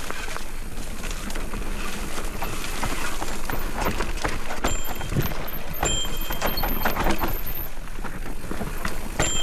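Specialized Turbo Levo electric mountain bike descending a rough dirt trail: tyres running over dirt and rocks while the bike rattles and knocks irregularly. A thin high squeal comes and goes a few times.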